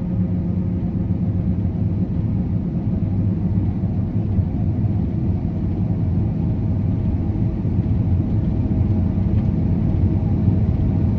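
Combine harvester running steadily, a constant low engine drone with a steady hum that does not change.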